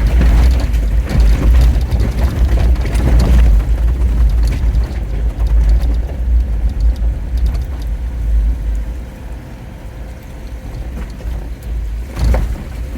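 Jeep Wrangler driving through flash-flood water over the road: a steady low rumble with water rushing and splashing around the tyres. It eases off about eight seconds in, then picks up briefly near the end.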